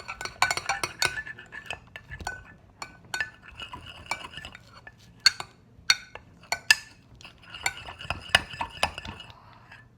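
Utensils stirring a glue-and-soap slime mixture in bowls, clinking irregularly against the bowl sides.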